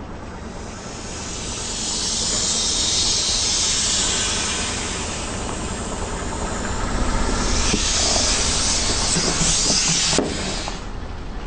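Air hissing out of inflatable plastic toys as a car tyre squashes them, in two long swells, the second cutting off suddenly with a click about ten seconds in. A low rumble from the slowly rolling car lies underneath.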